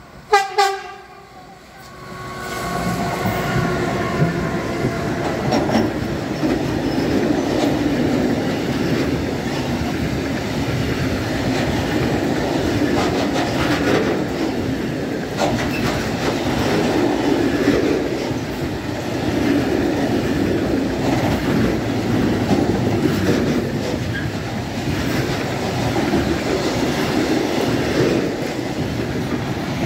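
An electric locomotive sounds one short horn blast at the very start, then a freight train of covered hopper wagons rolls past with a steady rumble of wheels on rail and occasional clickety-clack over rail joints.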